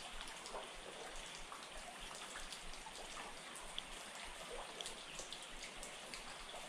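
Steady rain hiss with many scattered single drips and drops.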